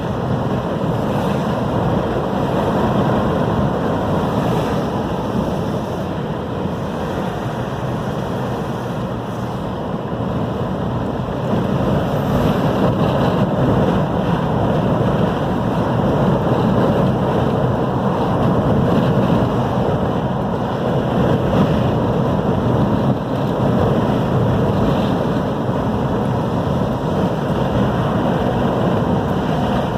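Strong storm wind blowing across the microphone over heavy ocean surf: a steady, dense rushing noise that swells louder about twelve seconds in.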